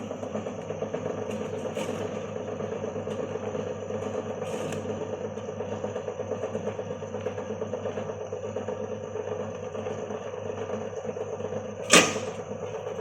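Electric chicken shredder machine running steadily with a fast, even pulsing over a constant hum, and one sharp clank near the end.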